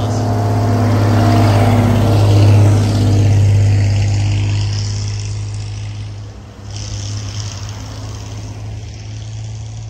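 A school bus drives past close by, its engine and tyres swelling to a peak about two and a half seconds in and then fading. A second later a heavy-duty pickup truck comes by close, its engine and tyre noise starting abruptly after a short lull and staying steady to the end.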